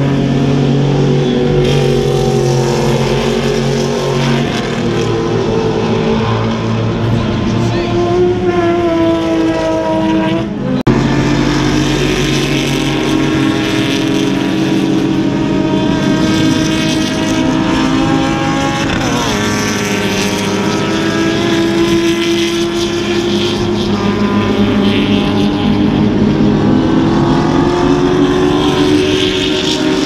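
Racing car engines running on the circuit, their pitch falling and rising as cars pass and change gear. The sound breaks off for a moment about eleven seconds in, then carries on.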